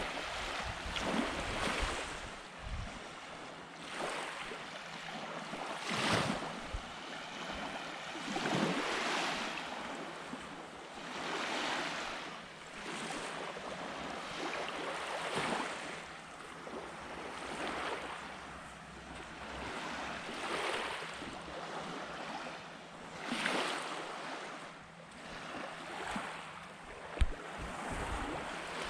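Small waves breaking and washing up on a sandy beach, the surf swelling and fading every few seconds. Wind buffets the microphone now and then, and there is one brief knock near the end.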